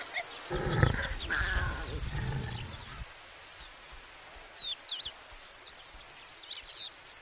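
Warthogs grunting, loudest about a second in and stopping about three seconds in. After that there is quiet outdoor background with a few faint bird chirps.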